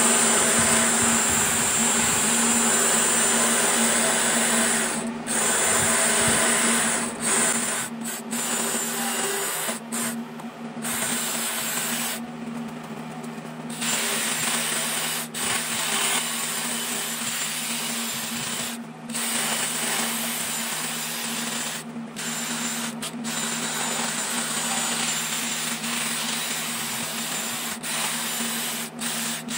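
Cordless die grinder with a carbide burr grinding out the intake and exhaust ports of a Lincoln V12 flathead engine block: a steady motor whine with grinding, cutting out briefly several times and once for over a second near the middle as the burr comes off the metal.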